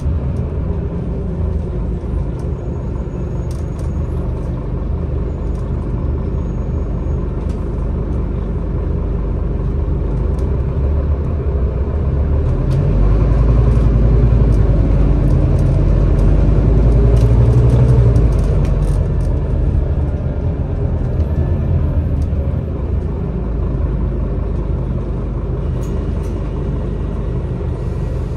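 Inside a Scania Citywide LFA articulated city bus under way: steady engine and road rumble. Near the middle it swells, and the engine note rises as the bus accelerates, then eases off again.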